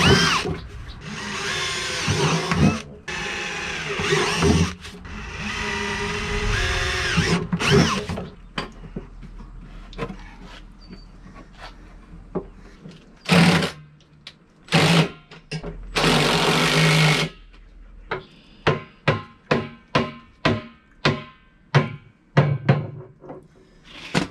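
Cordless DeWalt drill boring bolt holes through the end of a plastic barrel, its motor whine rising and falling with the trigger in several runs over the first eight seconds, then a few short bursts. Near the end comes a steady series of sharp knocks, about two a second.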